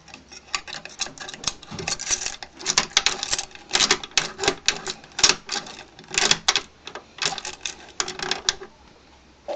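Try-out key being worked and jiggled in a three-lever lock, with fast, irregular metallic clicking and rattling of the key against the levers and the keys on the ring jangling; it stops shortly before the end.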